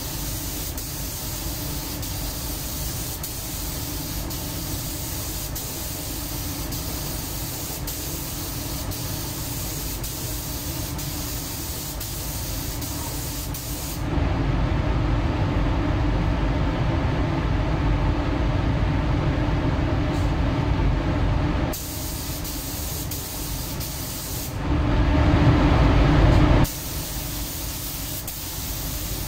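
Gravity-feed paint spray gun hissing steadily as compressed air atomises clear coat onto a car body panel. The hiss turns abruptly louder and duller about halfway through, and again briefly near the end.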